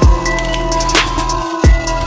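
Electronic background music with a heavy bass and a steady drum beat.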